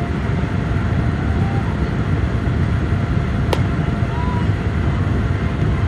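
Wind rumbling steadily on the microphone, with a single sharp crack about three and a half seconds in, from the pitch at home plate.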